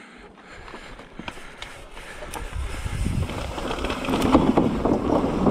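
Mountain bike rolling downhill over dirt and a rock garden: tyres on rock and the bike rattling, with scattered sharp knocks, growing steadily louder as it picks up speed.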